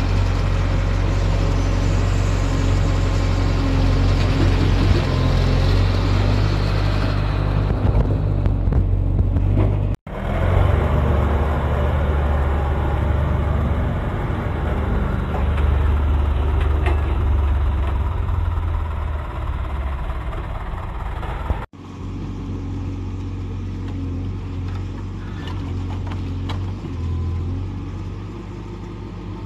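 Diesel engines of a Case 770EX Magnum backhoe loader and a dump truck running steadily while the machines work, in three stretches joined by abrupt cuts about 10 and 22 seconds in.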